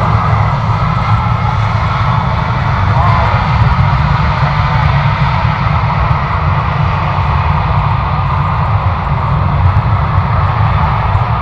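Jet airliner engine noise, a steady deep rumble with a hiss above it.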